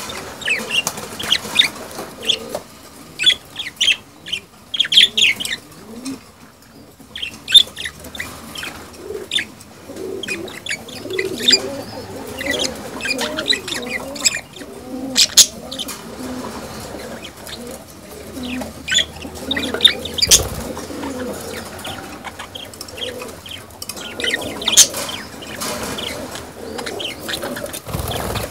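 Budgerigars chattering in an aviary: many quick, sharp chirps and squawks from a courting pair at a nest box, the male's display chatter. A lower, wavering cooing runs underneath through the middle stretch.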